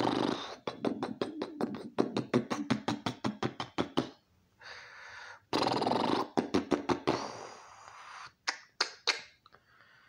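A man making mouth noises: quick runs of sharp clicks and smacks, about five or six a second, then a hissing breath with more clicks in it, and a few last clicks near the end.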